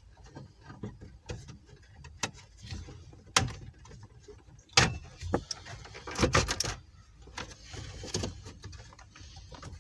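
Plastic dashboard trim of a 1997 Chevrolet Lumina being worked loose and handled: scattered sharp clicks and knocks, the loudest about five seconds in and a quick cluster a little after six seconds.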